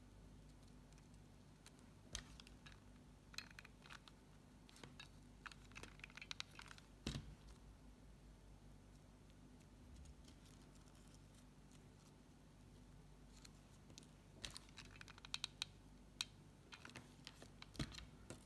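Faint rustling and small clicks of satin ribbon petals being handled and pressed by fingers, in two spells: a few seconds in and again near the end.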